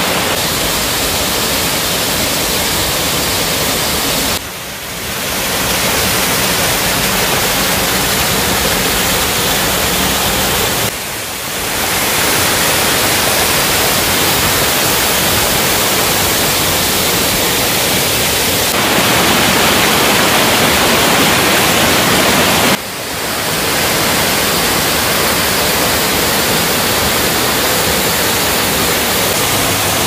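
Waterfall plunging into a rock pool and water cascading over boulders: a steady rush of falling water. It dips briefly three times and turns a little brighter for a few seconds past the middle.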